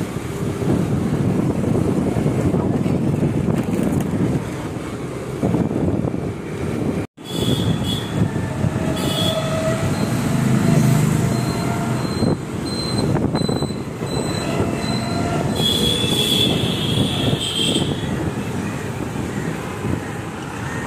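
Wind rushing over a phone's microphone with the rumble of a motor scooter riding along a road. It breaks off for an instant about seven seconds in. High, thin steady tones come and go in the second half.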